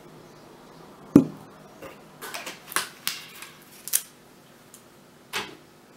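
Plastic bottles being handled and set down on a table: a sharp knock about a second in, a run of light clicks and taps, then another knock near the end.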